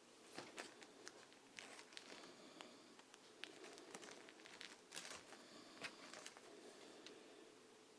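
Comic books being handled and shuffled: faint crinkling and rustling with scattered small taps and clicks.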